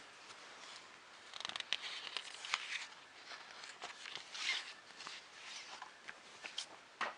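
Magazine pages being turned and handled, rustling and crackling in irregular bursts with a few sharp clicks.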